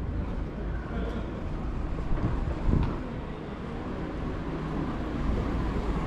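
Outdoor city ambience: a steady low rumble, with a couple of brief louder bumps a little over two seconds in.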